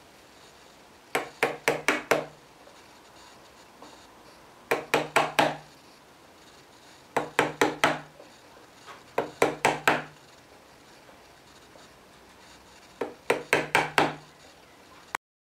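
Wood chisel, driven by hand, chopping into a board in five quick bursts of four or five sharp strikes each.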